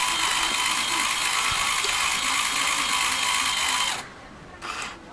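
LEGO machine's electric motors and plastic gears whirring and rattling steadily. It stops abruptly about four seconds in, then gives a brief burst just before the end.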